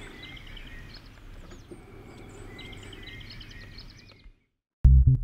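Outdoor ambience of small birds singing over a steady background hiss, with two similar trilled song phrases about two and a half seconds apart. The sound cuts off about four seconds in, and just before the end loud dub reggae music with a heavy bass line begins.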